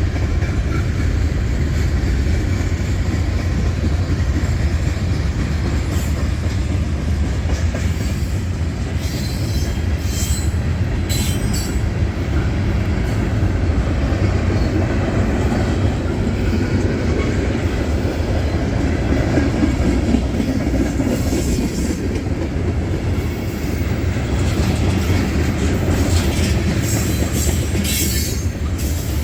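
Train rolling past: a steady rumble of wheels on rail, with brief high-pitched wheel squeals at a few points.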